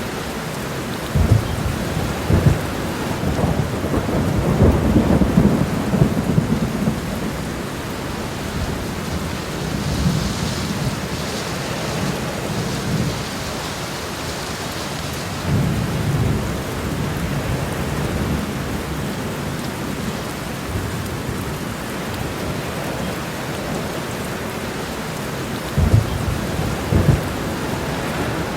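Heavy rain pouring steadily onto a road, an even hiss of rainfall. Occasional low thumps and short rumbles break through it, the sharpest twice near the end.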